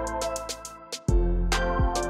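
Background music with a beat of kick drum and hi-hat over sustained pitched notes. It drops out briefly near the middle and comes back on a kick.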